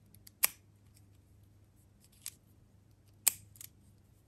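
Pentel Calme 3-colour ballpoint pen, a multi-pen built to click quietly, having its colour sliders pressed and released: sharp, small plastic clicks. One comes about half a second in, a faint one at about two seconds, and another just after three seconds with a smaller click right behind it.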